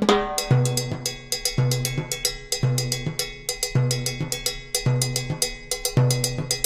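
Background music with a steady drum beat and a deep bass note repeating about once a second.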